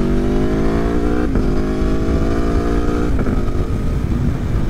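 Aprilia Tuono V4 1100 Factory's V4 engine accelerating hard through the gears. Its pitch climbs steadily and drops back at two quick upshifts, about a second in and about three seconds in. A low rush of wind runs underneath.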